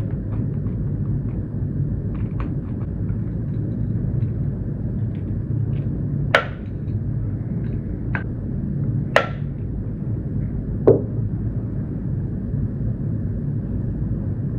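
Steady low hum with four sharp, separate clicks spread over the middle, from small metal parts and screws being handled and tightened on a small cassette assembly.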